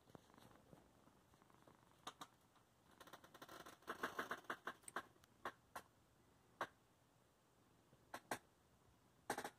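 Cat fur rubbing against a phone's microphone: scattered crackling rustles and clicks, thickest a few seconds in, over a quiet background, with the cat's purr only faint at the start.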